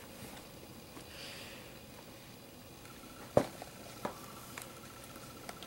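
Cardboard Lego set box being handled against a stack of other boxes: a sharp knock about three and a half seconds in and a lighter one soon after, over quiet room tone.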